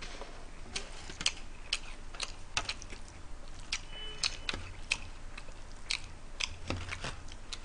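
Close-up eating sounds: chewing with sharp, irregular clicks, a few each second, as spaghetti is forked from a foil takeout tray.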